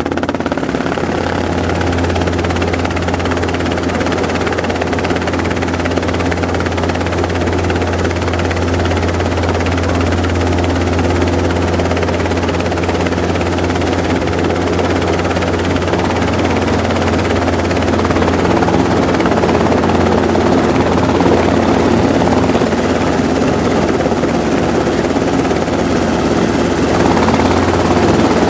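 Robinson R22 helicopter running steadily: the piston engine and the two-blade rotor, getting a little louder about two-thirds of the way through.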